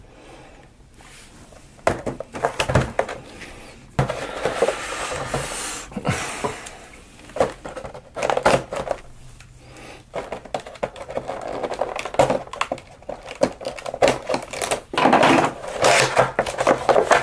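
Cardboard and clear plastic action-figure packaging handled by hand: irregular crinkling, rustling and small clicks and taps, growing busier and louder near the end.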